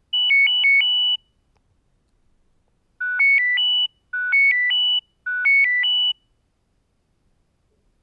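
Nokia 6260 mobile phone alarm tones. First comes a one-second burst of high beeps rapidly alternating between two pitches, the end of the 'Alarm high' tone. After a pause of nearly two seconds, the 'Alarm urgent' tone plays three times in quick succession, each time a short phrase of about four beeps that climbs and then dips before ending on a high note.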